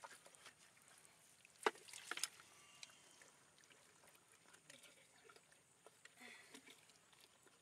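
Near silence with faint handling noise, broken by a sharp click about a second and a half in and a softer one about half a second later.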